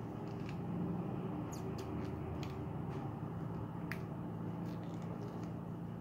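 A few scattered light clicks from fingers handling a small plastic slime container and its snap-on lid, over a steady low hum.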